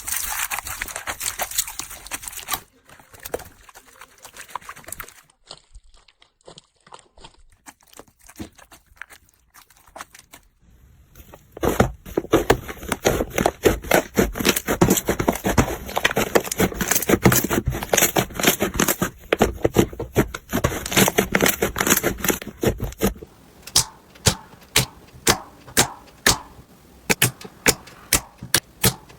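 Crunchy slime being squeezed and poked by hand: crinkling and crackling, dense and loud through the middle, then a run of separate sharp clicking pops, a few each second, near the end.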